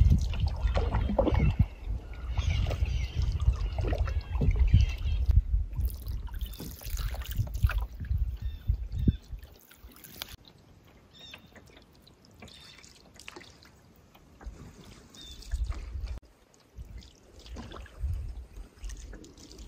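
Canoe paddling: a wooden paddle dipping and pulling through calm lake water, with water trickling and dripping off the blade. A low rumble on the microphone is loud for the first half and drops away about ten seconds in.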